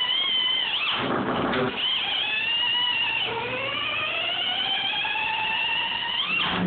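Large Snap-on socket spinning on its end on a concrete floor, making a whirring ring that scrapes roughly about a second in. The pitch then rises steadily as the spin slows and the socket wobbles, climbing sharply just before it stops as the socket falls over near the end.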